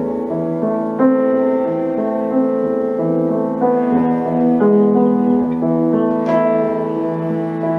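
Cello and piano playing a classical sonata: long held, wavering cello notes over piano chords.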